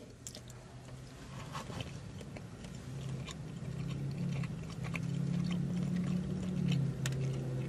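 Close chewing of a mouthful of smoked brisket, with scattered small mouth clicks. About three seconds in, a low steady hum comes in and grows louder.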